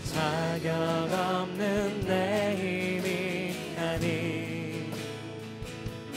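Live contemporary Korean worship song: a praise team of voices singing together over acoustic guitar and band accompaniment.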